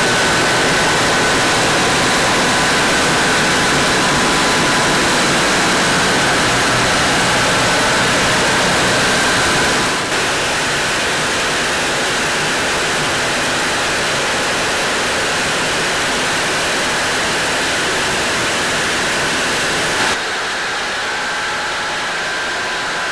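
Yacht engine room with the engines running underway: a loud, steady machinery noise with a few steady whining tones. The level drops slightly about ten seconds in and again about twenty seconds in.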